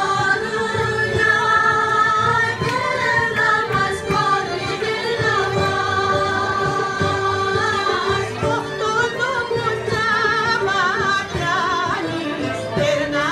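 Greek traditional folk song (dimotiko) playing for dancing: a singing voice and a wavering, ornamented melody over a steady held low tone.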